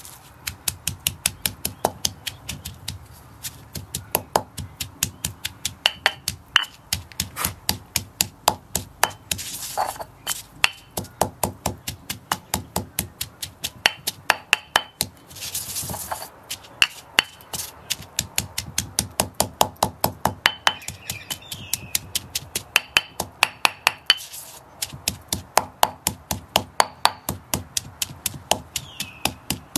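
Stone pestle pounding herbs and chillies in a stone mortar: steady sharp knocks, roughly two to three a second, with short breaks about ten and sixteen seconds in.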